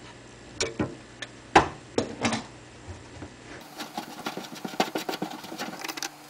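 Plastic slip nut on a kitchen sink strainer's tailpiece being loosened: a few separate clicks and knocks of pliers working the nut, then, about three and a half seconds in, a quick run of small clicks and rattles as the nut is turned by hand.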